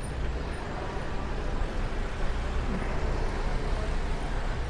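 Steady street and traffic noise with a rush of air from riding a bicycle, no single event standing out.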